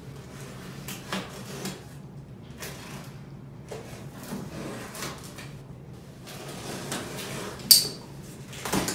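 Box cutter slicing the packing tape along the top of a cardboard box, with cardboard scraping and rustling and a few light knocks. A short, loud, sharp rasp comes about three-quarters of the way through.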